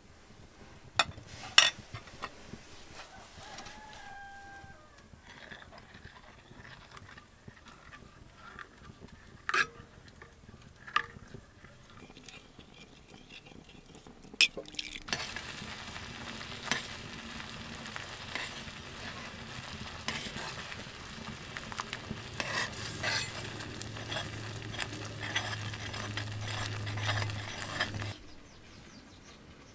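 A spoon clinks now and then against a small iron pan, and about halfway through a steady sizzling starts as the bubbling flour porridge is stirred in the pan over the fire. The sizzling cuts off suddenly near the end.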